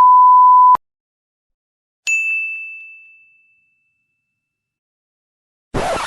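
A steady electronic beep that stops under a second in, then silence, then a single bright ding about two seconds in that rings out and fades over about a second and a half. Near the end a short noisy burst begins, the start of the next effect.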